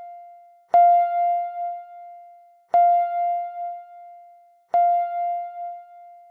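Countdown timer's end alarm: a bell-like chime struck three times about two seconds apart, each ringing out and fading with a slight waver, signalling that the time is up.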